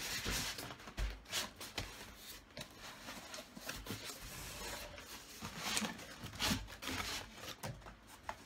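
Irregular rubbing, scraping and rustling of cardboard, styrofoam and plastic wrap as a boxed PC case is worked out of its tight shipping box.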